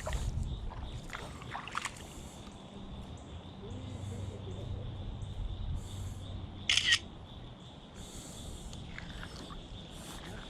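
Close handling noise outdoors: scattered small clicks and rustles over a low rumble, with one short, louder scrape about seven seconds in, and a faint steady high hum underneath.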